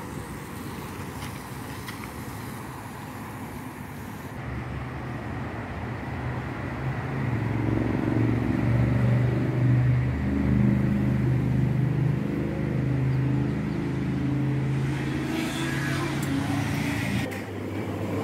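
A road vehicle's engine running close by: a steady low hum that swells over several seconds and then holds before dropping away near the end.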